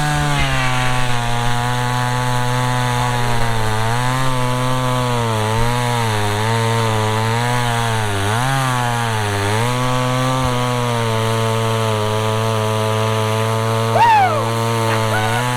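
Small two-stroke chainsaw run at full throttle through a log, its engine note rising as it opens up and then sagging in pitch briefly several times as the chain bites under load. A short high squeal sounds near the end.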